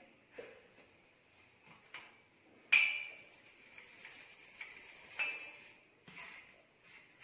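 Stainless steel sieve knocking and clinking against a steel plate while ground spice powder is sifted: scattered metal taps, the loudest a short ringing clang nearly three seconds in.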